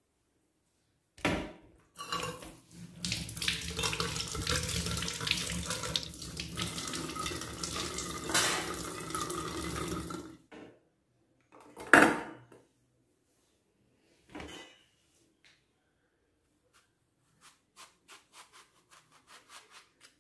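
Tap water running into a stainless steel sink as vegetables are rinsed under it, for about eight seconds, then stopping. A loud knock follows a couple of seconds later, then a smaller one, and a run of light clicks near the end.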